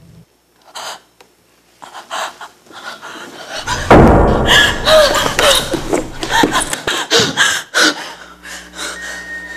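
A woman gasping and panting in short, sharp breaths that build into a run of strained, wavering cries. A heavy thump lands about four seconds in, and a steady low drone comes in near the end.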